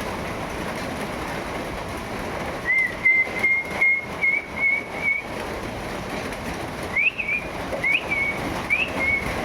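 High whistled notes over a steady hiss of rain: a quick run of short chirps a few seconds in, then, near the end, repeated notes that each sweep up and drop back, about one a second.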